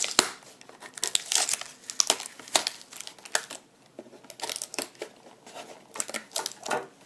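Clear plastic packaging and a cardboard tray crinkling and crackling in irregular spurts as hands pry a die-cast model car free, with some tearing as the adhesive tape holding it is pulled loose.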